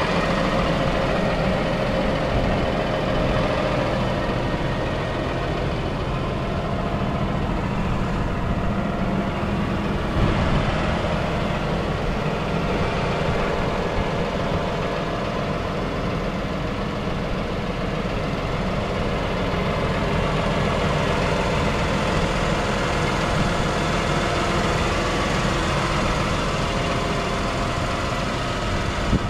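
Deutz-Fahr Agrotron 6155's six-cylinder diesel engine idling steadily.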